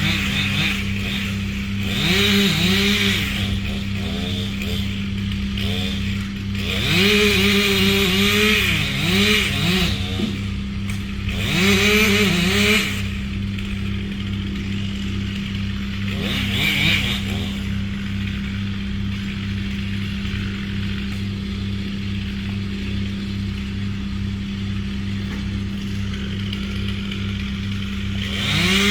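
A chainsaw revved up and let back down in several bursts of a second or a few seconds, over a steady low engine hum that runs throughout.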